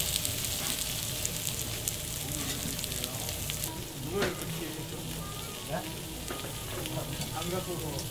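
Raw lamb sizzling on a hot Genghis Khan (jingisukan) grill plate, a steady frying hiss broken by a few sharp clicks.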